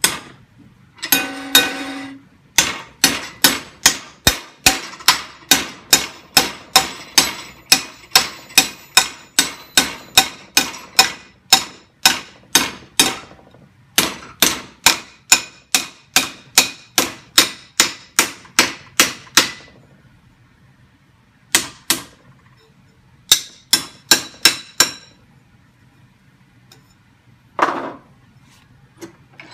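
Hammer blows on a flat metal strip clamped in a bench vise, knocking it over to make a bend. There are two long runs of steady blows at about two a second, then a few short groups, and one single knock near the end.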